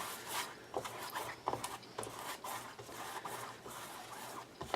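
Paintbrush dragging acrylic paint across a canvas: a series of short, scratchy brush strokes.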